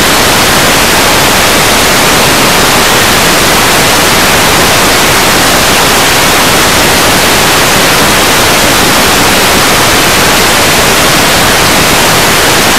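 Loud, steady static hiss with nothing else in it: the noise of an analog wireless video receiver that has lost its signal.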